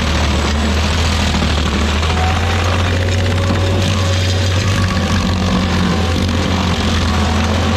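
Rayco RG50 stump grinder running steadily under load as its cutter wheel grinds into a maple stump: a constant deep engine hum under a dense, even rush of wood being chewed and chips flying.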